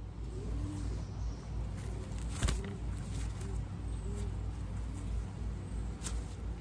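Pigeons cooing in a string of short rising-and-falling calls, over a steady low rumble, with two sharp knocks, about two and a half seconds in and again about six seconds in.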